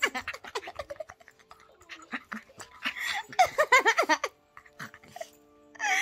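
A woman's high-pitched voice laughing, then steady background music starts about four seconds in.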